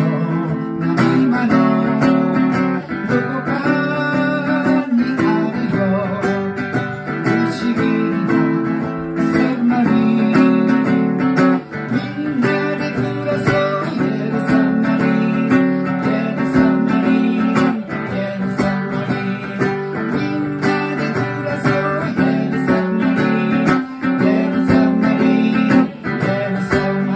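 Acoustic guitar strummed in a steady, even rhythm, a continuous run of chords.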